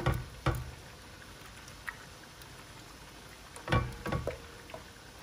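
Silicone spatula stirring a sauce in a nonstick pan, with short scrapes and knocks against the pan: a few at the start, a single click about two seconds in, and another cluster late on.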